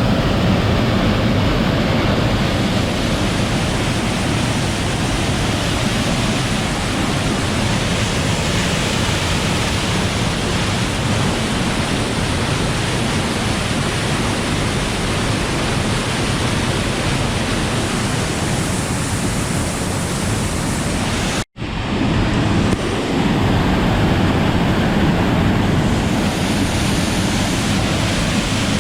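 Waterfall and fast creek water rushing in a loud, steady wash, broken by a split-second dropout about twenty-one seconds in.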